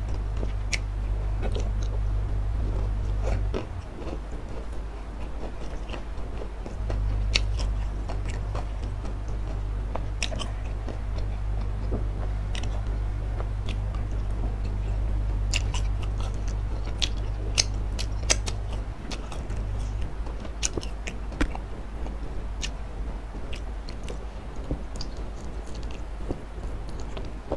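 Close-miked chewing and crunching of crispy fried wonton dipped in chili sauce, with many sharp wet mouth clicks. A forkful of spicy instant noodles goes in near the end. A steady low hum runs underneath and drops out twice.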